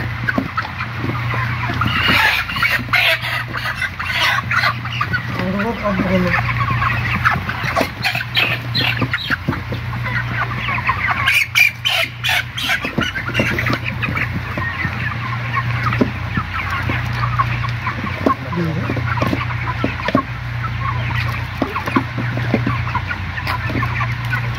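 A large flock of broiler chickens chirping and clucking continuously while birds are handled into a box for weighing, with a cluster of flapping and knocking about halfway through. A steady low hum runs underneath.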